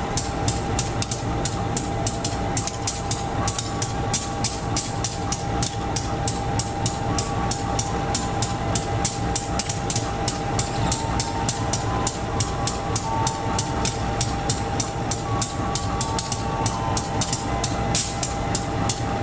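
Passenger train coaches rolling along, their wheels clicking over the rail joints in a steady rhythm of about three to four clicks a second, over a low rumble.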